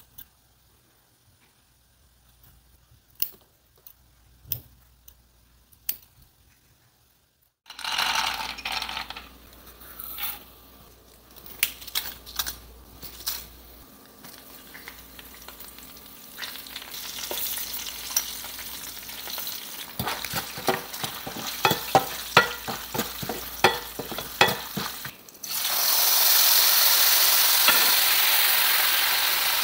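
A few faint scissor snips, then oil frying in a stainless steel pan: peanuts, dals, dried red chillies and curry leaves sizzling for a lemon-rice tempering, with a spoon stirring and clinking against the pan. About three-quarters of the way through, liquid goes into the hot oil and a much louder, steady sizzle starts suddenly.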